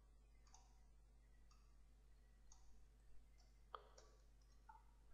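Near silence with a handful of faint, short clicks from a computer mouse and keyboard being worked; the sharpest comes a little before the end.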